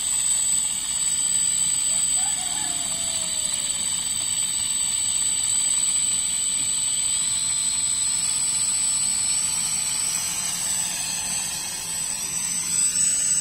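Toy quadcopter drone's propellers whining steadily as it hovers, the whine rising in pitch from about seven seconds in as the drone climbs away.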